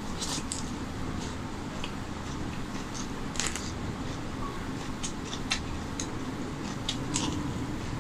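Close-miked mouth sounds of eating rice and chicken curry by hand: wet chewing with scattered sharp clicks and smacks, over a steady low background hum.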